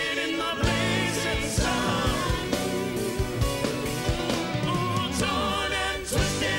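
Live rock band playing with a singer's long wavering held notes over regular drum hits and a steady bass line.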